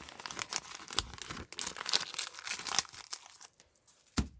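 Crinkling and tearing of a foil Pokémon booster-pack wrapper being handled and ripped open, an irregular papery crackle that fades out, with a short soft thump near the end.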